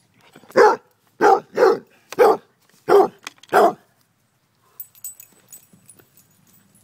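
Basset hound mix barking six times in about three seconds, sharp single barks at the owner during a game of fetch. Only faint clicks and rustles follow in the last couple of seconds.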